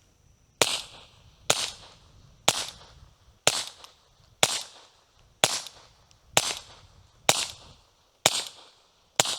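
Ten suppressed .22 rimfire shots of CCI standard velocity ammunition fired about once a second through a higher-priced .22 silencer, each a short sharp report with a brief tail.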